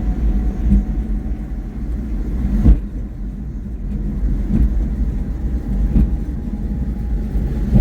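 Small truck driving, with a steady low engine and road rumble and one sharp knock about three seconds in.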